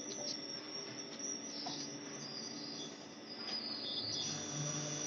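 A thin, high-pitched electrical whine from a stir casting furnace's machinery, wavering and stepping slightly in pitch, with a few faint clicks.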